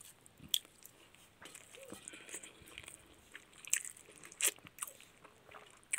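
A person chewing a mouthful of pakhala (water rice) close to the microphone, with a few short, sharp crunchy bites, the loudest about four and a half seconds in.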